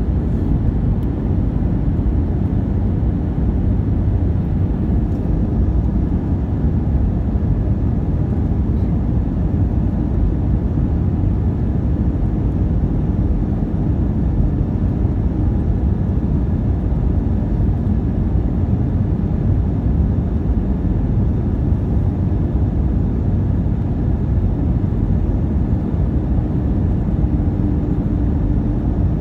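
Cabin noise inside an Airbus A319-132 on its landing approach: a steady low rumble of airflow and the IAE V2500 turbofan engines, with a faint steady hum joining near the end.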